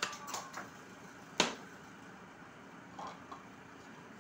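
Kitchen knife cutting okra on a plastic cutting board: a few light knocks of the blade on the board in the first second, then one sharp, louder knock about a second and a half in.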